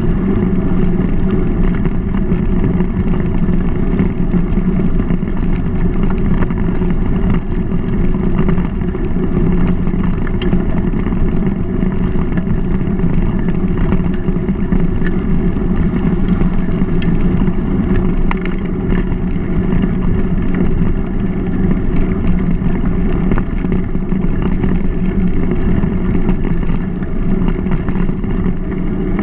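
Steady rumble of a mountain bike rolling along a gravel towpath, picked up by a GoPro mounted on the bike, with scattered faint ticks from the gravel and the bike.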